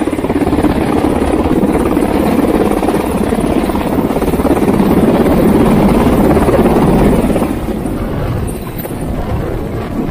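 UH-60 Black Hawk helicopter hovering low overhead: loud, steady rotor beat and twin-turbine noise. It is loudest a little past halfway and eases slightly near the end.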